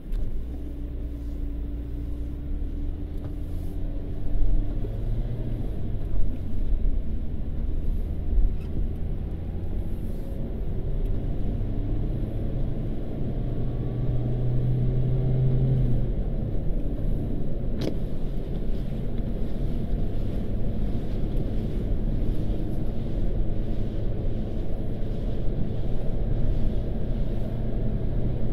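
Car engine and road noise heard from inside the cabin as the car pulls away from a stop and gathers speed. It is a steady low rumble with engine tones that change pitch several times.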